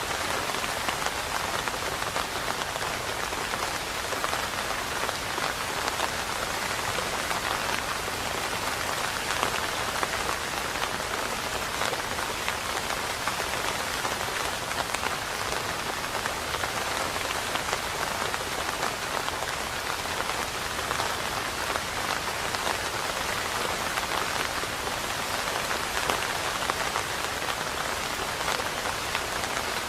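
Steady rain falling on a surface, a dense, even patter of drops that keeps the same level throughout.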